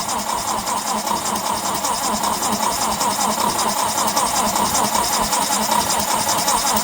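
Lincoln SA-200 welder's four-cylinder gasoline engine being cranked by its starter, turning over steadily in fast, even pulses without catching on a cold start in freezing weather.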